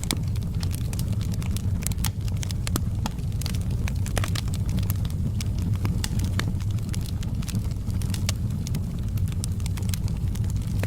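Wood fire burning with a steady low rumble and frequent sharp crackles and pops, several a second.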